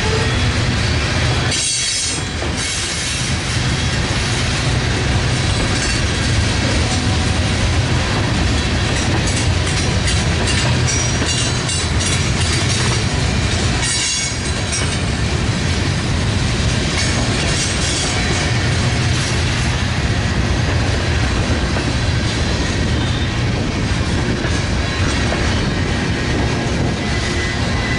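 Freight train cars rolling past, wheels clattering over the rail joints with some squeal from the wheels.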